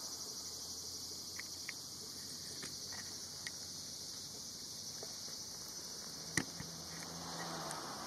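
Cicadas singing in a steady, high-pitched drone, with a few faint ticks and one sharper click about six and a half seconds in.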